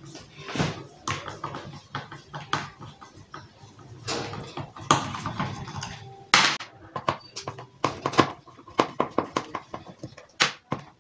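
Screwdriver working the mounting screws of a loudspeaker driver in a small speaker cabinet: irregular clicks and scrapes of the tool on the screws, driver frame and box, with a sharp knock about six and a half seconds in.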